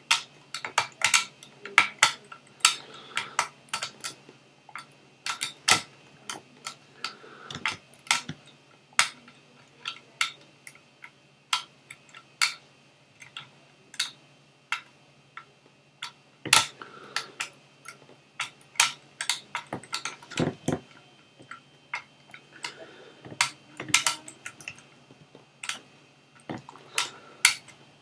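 Lever lock picks working inside an ERA Fortress lever lock: irregular sharp metallic clicks and ticks as the lever pack is lifted and the levers are picked one by one.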